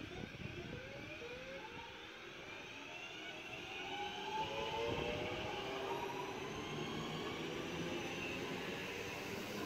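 Class 323 electric multiple unit passing close by, its traction motors whining in several tones that rise steadily in pitch, over wheel and rail noise. It gets louder about four seconds in as the train draws alongside.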